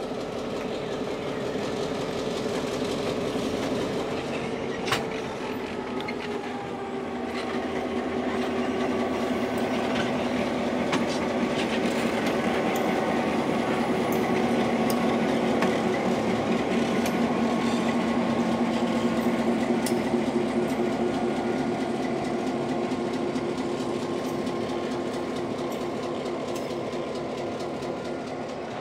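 EMD GP9 diesel locomotive's 16-cylinder 567 two-stroke engine running steadily as it moves passenger coaches slowly past, with wheels clicking over the rails and a single sharp knock about five seconds in. It is loudest in the middle as the locomotive goes by, then fades a little as it draws away.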